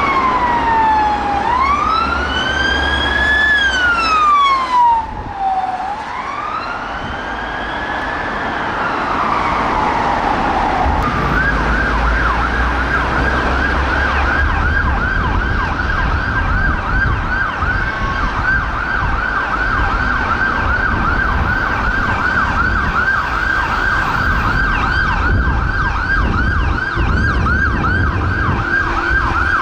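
Police BMW X5's siren on a slow wail, rising and falling every few seconds. About ten seconds in it gives way to a Renault Master ambulance's siren on a fast yelp, a few quick sweeps a second. Road traffic runs underneath.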